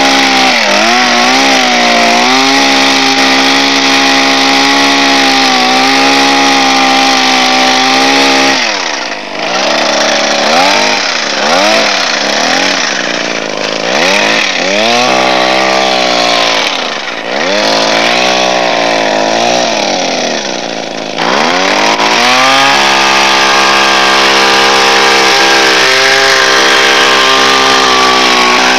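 Small petrol engine of a homemade walk-behind grass mower running fast and steadily; through the middle of the stretch its speed rises and falls again and again, about once every two seconds, before settling back to a steady run.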